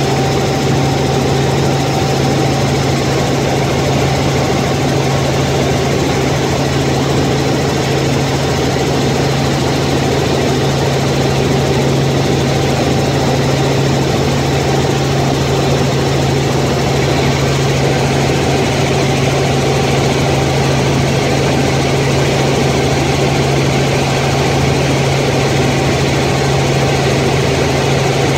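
Steady drone of a light helicopter in cruise flight, heard inside the cabin: a loud, deep, even hum of engine and rotors with a hiss of rushing air over it.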